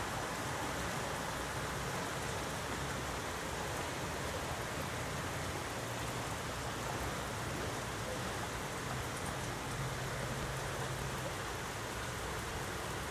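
Heavy rain falling in a steady downpour during a thunderstorm, an even hiss of rain on roofs and leaves.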